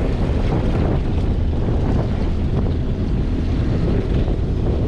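Wind buffeting the microphone over a steady low rumble of sea and boat on a choppy ocean.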